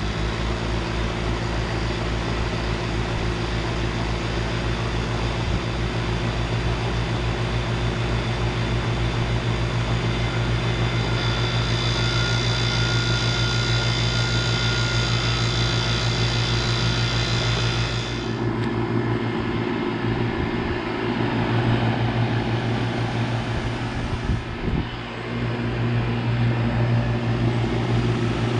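2001 Carrier central air conditioner's outdoor unit running steadily: the compressor's low hum under the rush of the condenser fan. About two-thirds of the way through, the hiss in the sound drops away and the low hum shifts.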